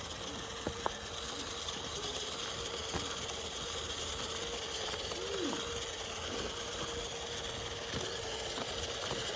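Small electric motor and gearbox of a radio-controlled FMS trail truck whining at a steady pitch as it crawls along slowly, with a few faint clicks.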